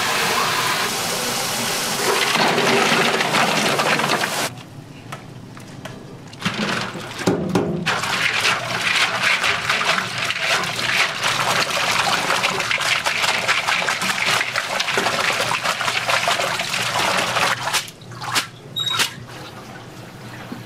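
Water running and splashing in a restaurant kitchen, with a short break a few seconds in and a drop near the end.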